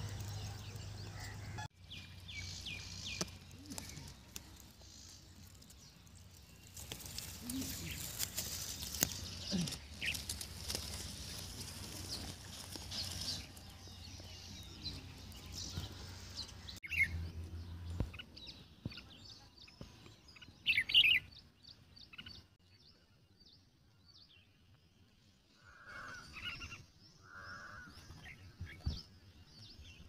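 Wild birds chirping and calling in short bursts, with a steady low hum underneath for about the first half.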